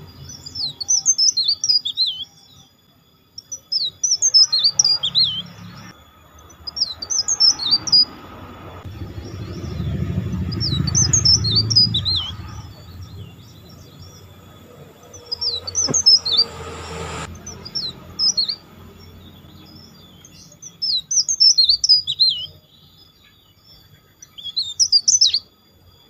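Caged tralis songbird whistling: about eight short phrases of quick, high whistled notes, each a second or two long with pauses between. A low rumble sits underneath near the middle, and there is one brief click a little after halfway.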